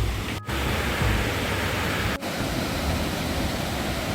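Waterfall close by, a steady dense rush of falling water, broken by two split-second gaps, about half a second and about two seconds in.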